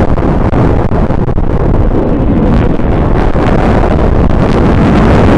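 Propeller-driven warbirds flying overhead, their engines a steady drone under heavy wind buffeting on the microphone.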